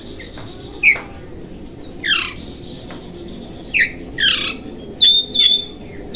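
Oriental magpie-robin (kacer) calling: a short note about a second in, falling sweeping notes around two and four seconds, then short high whistled notes near the end.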